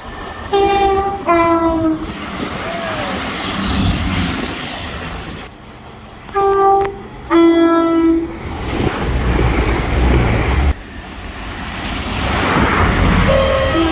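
Two-tone train horn sounded twice, each time a short higher note followed by a lower note; the second time the low note is held longer. The noise of a moving train runs between the soundings, and another horn sounding begins near the end.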